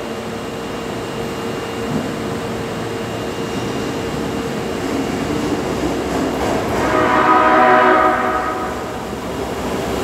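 Osaka Metro Tanimachi Line 22 series subway train rumbling into the station and sounding its horn for about two seconds near the end, a horn with an unusual, off-sounding tone that marks this car.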